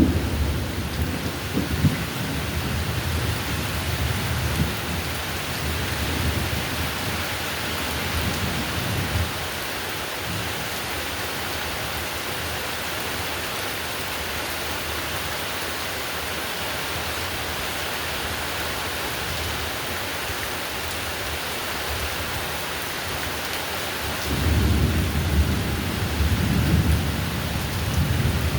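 Heavy rain falling steadily, with low rolls of thunder: one rumbling away over the first several seconds and another starting near the end.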